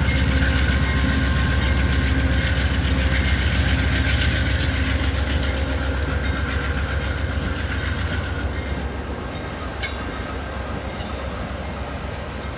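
GE P40DC diesel locomotive pulling a Shore Line East passenger train away from the station: a steady low diesel rumble that fades over the last few seconds as the train moves off, with a few sharp clicks of wheels on the rails.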